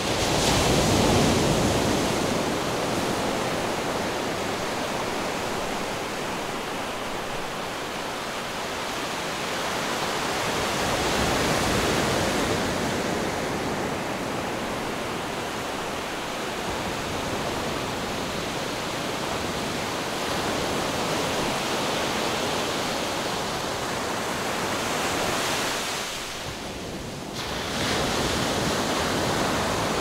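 Ocean waves breaking and washing in: a continuous rush of surf that swells and eases, dipping briefly near the end before building again.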